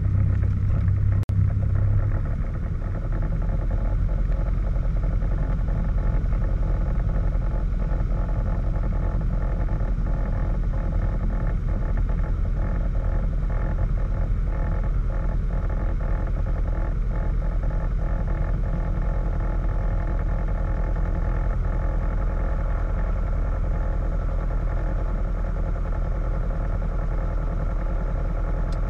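Light airplane's piston engine and propeller running at low power while taxiing, heard inside the cabin as a steady low drone. There is a brief click about a second in, and about two seconds in the engine note drops lower and then holds steady.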